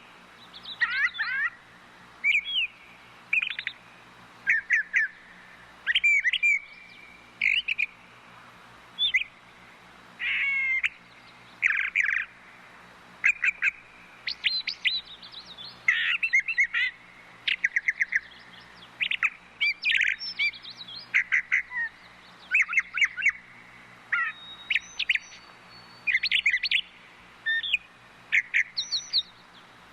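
Brown thrushes singing: a long run of short, varied phrases of chirps, trills and whistles, each under a second long, coming every second or two with short gaps between.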